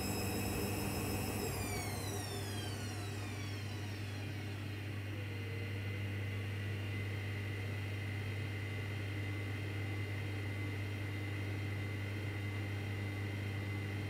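Hoover washing machine's drum motor spinning down: its high whine falls in pitch and fades out over the first few seconds, while a steady low hum carries on. The drum is full of thick suds, so this is the machine's suds-lock halting the spin because of oversudsing.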